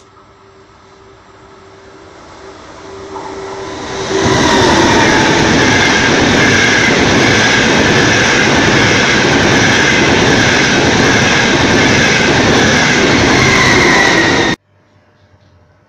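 ETR500 Frecciarossa high-speed electric train running through a station at speed without stopping. Its noise builds over about four seconds as it approaches, then holds loud and steady as the train goes by, and cuts off suddenly near the end.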